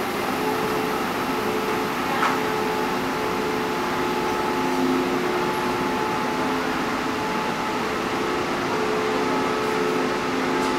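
Taiwan Railway Tze-Chiang express train departing slowly, its carriages rolling past with a steady rumble and a hum of several steady tones that come and go. A single short clank about two seconds in.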